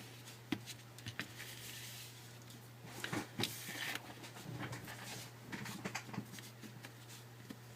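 Faint scattered clicks and taps of small tools and parts being handled while a smartphone is taken apart, over a steady low hum.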